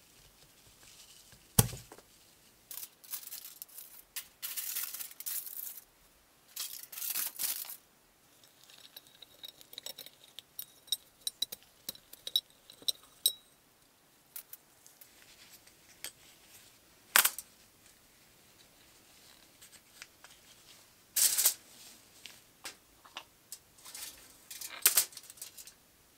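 Handling noises on a workbench: a sharp knock about a second and a half in, then short bursts of crinkling from aluminium foil being handled, with scattered clinks and taps of a glass jar.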